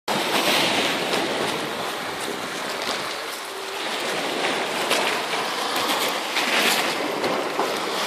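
Small waves washing onto a pebble beach: a steady rush that swells and eases a few times.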